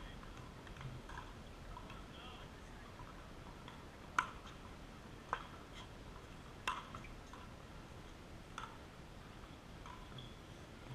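Pickleball rally: four sharp pops of paddles hitting the plastic ball, one to two seconds apart, the first the loudest.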